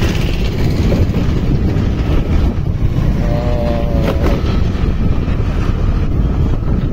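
Wind buffeting the microphone on a moving Honda Dio scooter, mixed with its engine and tyre noise: a loud, steady rumble while riding at speed. A short pitched sound comes through about three seconds in.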